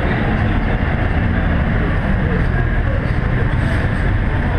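Subaru Impreza's flat-four engine running at a steady speed on a rolling-road dyno, a loud, even drone mixed with the hum of the rollers.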